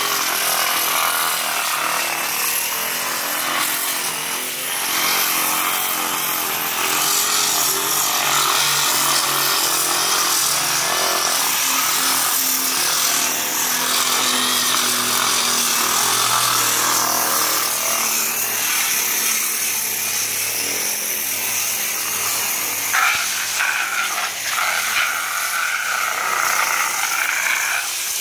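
Corded electric disc sander running steadily with its pad pressed against pool plaster, sanding down the peeling surface: a continuous motor whine over the rasp of the abrasive on plaster, wavering near the end.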